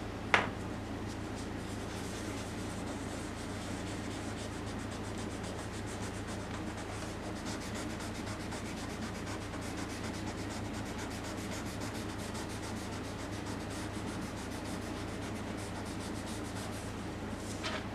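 A hand rubbing over paper in quick, even strokes, blending the graphite shading of a pencil drawing. A sharp click comes about half a second in, over a steady low hum.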